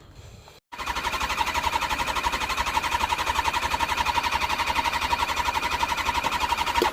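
1997 Kawasaki ZX6R's starter cranking its inline-four engine with a fast, even pulsing and a steady whine, without the engine catching. It starts abruptly just under a second in and stops sharply. This is a failed start after months of sitting, on a weak battery jumped from a car.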